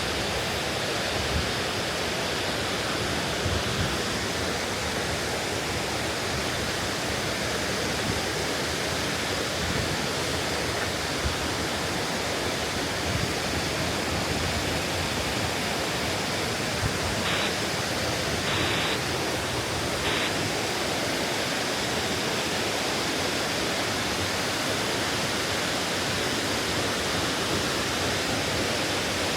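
Water of Pongour Waterfall pouring down: a steady, unbroken rushing.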